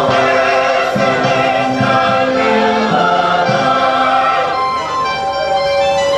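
Music: a choir singing a gospel-style song with instrumental backing.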